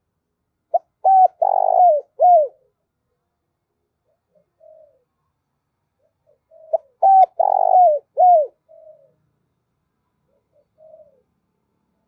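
Spotted dove cooing: two calls about six seconds apart, each a few short notes, a longer coo and a coo that falls in pitch at the end. Fainter, softer coos come in between.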